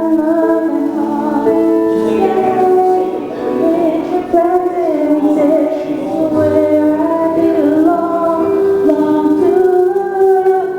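Worship music: a woman singing over sustained keyboard chords.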